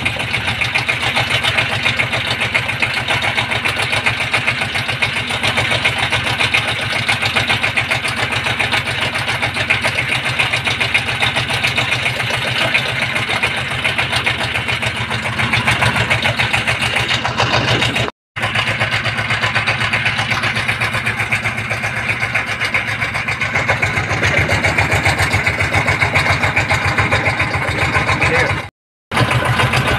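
Engine of a river trawler running steadily under way, with a fast, even beat. The sound cuts out briefly twice, about 18 seconds in and again near the end.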